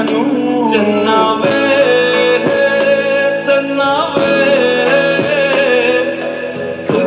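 Hindi romantic pop song with singing over a steady beat, played from a phone through a small portable Bluetooth speaker during a sound test.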